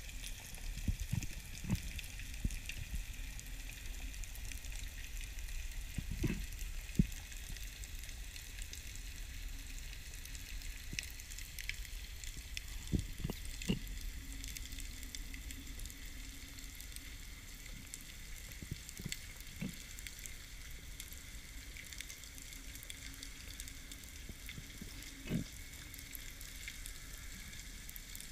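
Underwater ambience: a continuous fine crackling hiss of the sea, with a few short low thumps scattered through it.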